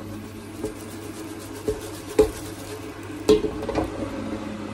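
Half-cooked, seasoned fresh-cut fries being tossed in a pulled-out airfryer basket: light rustling clatter of the potato sticks against the nonstick metal basket, with three louder knocks, over a low steady hum.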